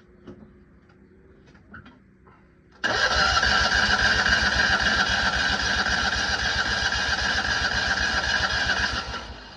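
Citroën 2CV's air-cooled flat-twin engine being cranked by the starter motor for about six seconds, starting suddenly about three seconds in with a fast, even pulse and cutting off sharply near the end without the engine catching: the car is failing to start.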